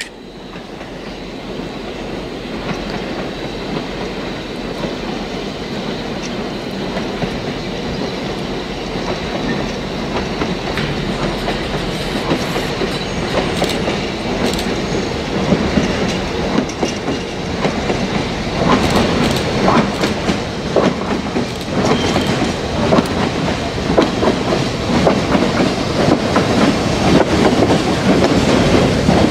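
Slow freight train of flatcars loaded with rail rolling past close by, wheels clattering over the rail joints, growing steadily louder. The diesel locomotive shoving at the rear comes in loudest near the end.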